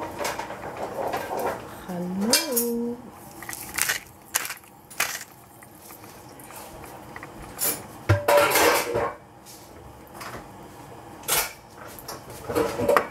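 Metal pots and kitchen utensils clinking and knocking in scattered, irregular strikes, with a few louder clatters about eight and eleven seconds in.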